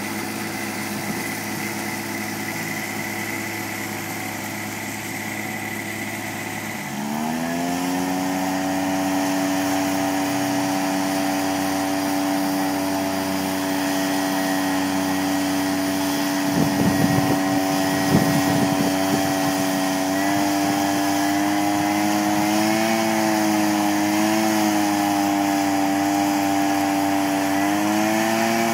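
Small petrol engines of a ride-on mower and a towed paddock vacuum running steadily, then the engine revs up about seven seconds in and holds a higher steady note. Midway, a few seconds of clattering as dung is sucked up through the paddock cleaner's hose, and later the engine note wavers slightly as the hose works.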